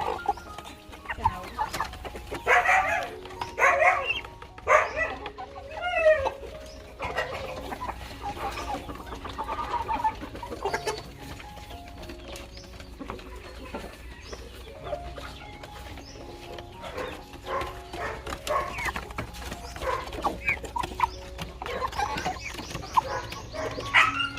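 Chickens clucking and calling, loudest and busiest in the first six seconds, with fainter scattered calls after that.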